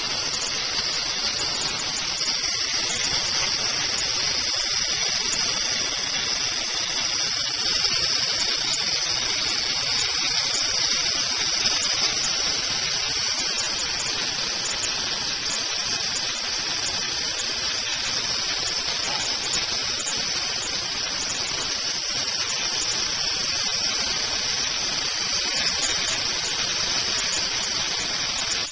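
Spark gap of a high-voltage Tesla hairpin circuit firing continuously: a loud, steady harsh hiss that cuts off suddenly at the end as the circuit is switched off.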